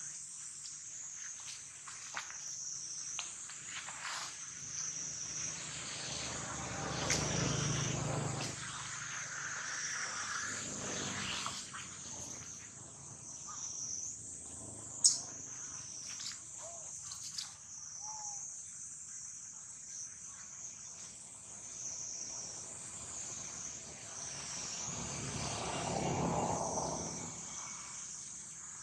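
Steady high-pitched insect chorus droning throughout, with two louder swells of broad lower noise and a single sharp click about halfway through.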